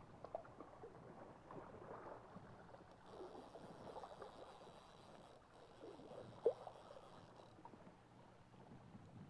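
Faint gurgling of a small creek's flowing water, with scattered small ticks and one sharper click about six and a half seconds in.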